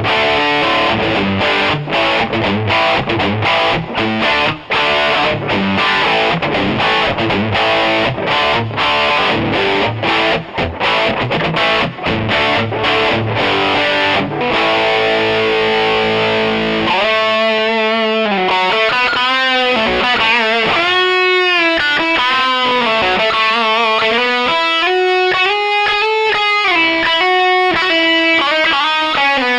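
Electric guitar played through the takky drive2 extreme distortion. It starts with dense, distorted chordal riffing with short rhythmic stops, then a little over halfway switches to sustained single-note lead lines with a wide vibrato.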